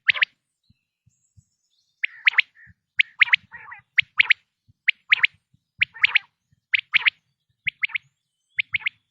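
Male common quail calling: quick phrases of two or three sharp, high notes, repeated about once a second after a short pause near the start.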